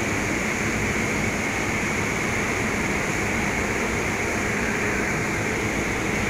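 Steady mechanical drone and rushing noise inside a ferry's enclosed vehicle deck, from the ship's machinery and ventilation, unchanging throughout.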